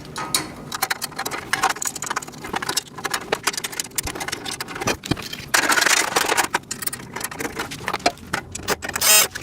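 Metal rack parts and small hardware clinking, rattling and scraping as they are handled and fitted together, with a longer rasping scrape about six seconds in and a quick run of sharp clicks near the end.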